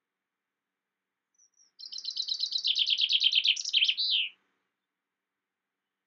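Common chaffinch singing one full song phrase, about two and a half seconds long: rapid trills of repeated high notes that step down in pitch, ending in a quick swooping flourish.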